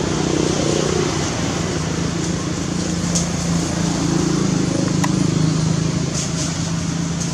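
Steady running hum of a vehicle engine, held at one pitch, under a wash of outdoor traffic noise, with a few faint clicks.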